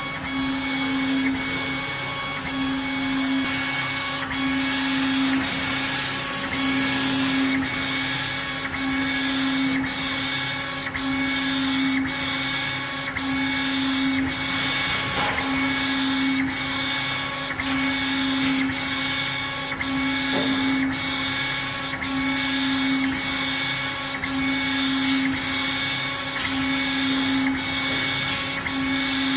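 CO2 laser engraver raster-engraving stone: the laser head's motors whine in a pulse that repeats about once a second as the head sweeps back and forth, with faint regular clicks over a steady machine hum.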